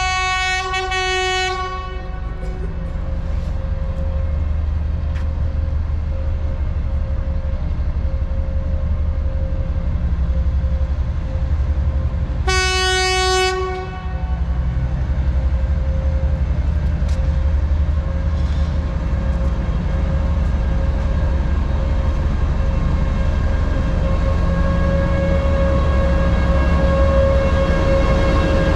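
Two TEP70BS diesel locomotives, coupled in tandem, bring a passenger train into a station. Their horn sounds twice: a blast of about two seconds at the start and a shorter one about twelve seconds in. Between and after the blasts the diesel engines drone steadily, growing slightly louder as the locomotives come alongside.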